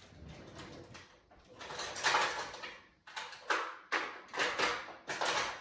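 Kitchen handling noises: a run of scraping, rattling sounds as utensils are picked up and handled, the longest and loudest about two seconds in, then several shorter ones.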